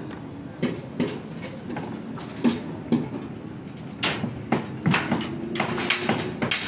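Irregular knocks and thuds of work on plywood formwork: hammering and plywood sheets being laid down over the rebar, with a faint steady hum underneath.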